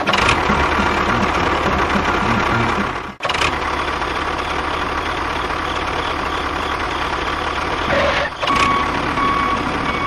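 Tractor engine running steadily, with a short break about three seconds in. A steady high beep-like tone sounds for about a second near the end.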